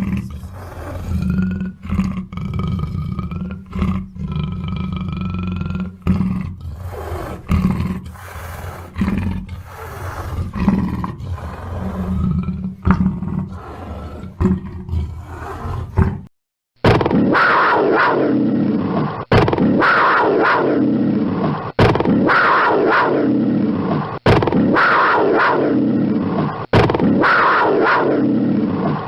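Black panther (a big cat) growling and roaring. First comes a long, low, steady growl. After a short break comes a run of roars, each falling in pitch, about one every two and a half seconds.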